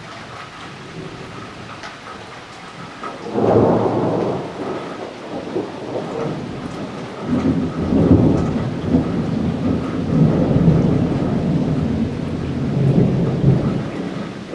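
Thunder: a loud peal breaks in suddenly about three seconds in and rolls on as a long, low rumble that swells again several times before dying down near the end.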